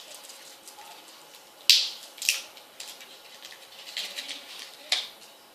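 Handling noise from a small toy container being worked open by hand: a few sharp clicks and rattles, the loudest about a second and a half in.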